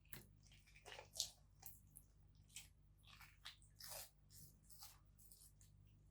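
Faint kitchen handling sounds from food preparation: a string of short, irregular clicks and soft scrapes over a low hum.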